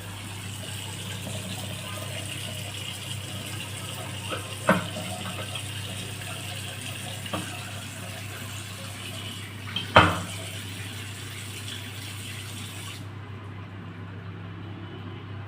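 Water running from a bathroom tap as a steady hiss, with a few sharp knocks of metal or plastic on the fitting, the loudest about ten seconds in. The hiss cuts off suddenly about two-thirds of the way through.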